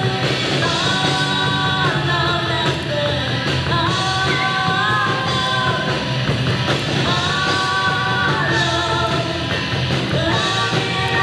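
Live rock band playing: electric guitar, bass and drums with a singer on a handheld microphone, held chords and vocal lines changing every second or two, recorded on a camcorder's built-in microphone.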